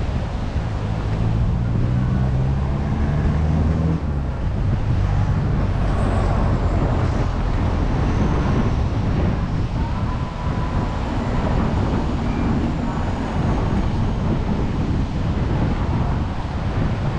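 Steady rushing outdoor noise of traffic and wind on the microphone, with a motor engine droning low for about the first four seconds.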